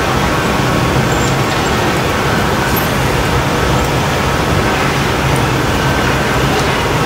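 Steady, even roar of glassblowing hot-shop equipment, the gas-fired furnace and glory-hole burners and ventilation fans, with a low hum underneath.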